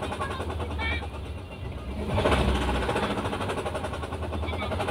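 Suzuki Carry Futura van's engine idling unevenly, heard from inside the cab, growing louder about two seconds in. The owner takes the rough idle for one spark plug not firing.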